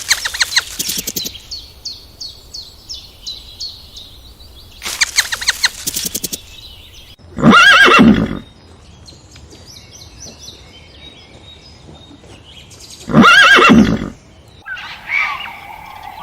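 Horse neighing: short quavering whinnies at the start and about five seconds in, and two loud, full neighs about a second long, around seven and thirteen seconds in. Near the end a different, higher chirping call takes over.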